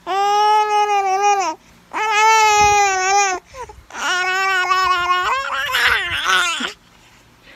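A young infant crying in three long wails, each held on a fairly steady high pitch, with short breaths between. The third wail turns rough and strained towards its end.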